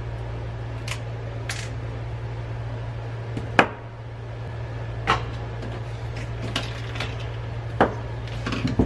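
Sharp clicks and snaps as small plastic fluorescent-tube lamp holders are pried apart by hand and with cutting pliers, about six separate clicks, the loudest about three and a half seconds in. A steady low hum runs underneath.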